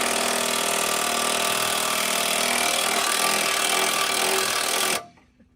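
A power tool running steadily at full speed, then cutting off abruptly about five seconds in.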